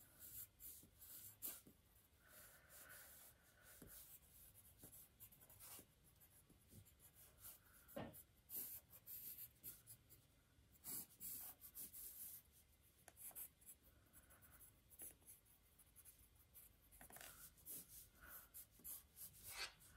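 Faint scratching of a pen on paper in many quick, irregular sketching strokes.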